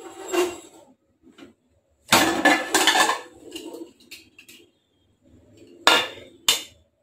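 A metal pressure cooker lid being opened: it rattles and scrapes against the pot as it is worked loose and lifted out, with the longest, loudest clatter a couple of seconds in. Two sharp metal clanks follow near the end.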